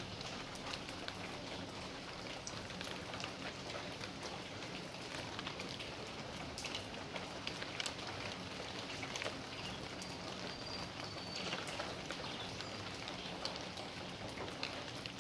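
Steady rain falling, with many individual drops tapping close by on the surfaces around.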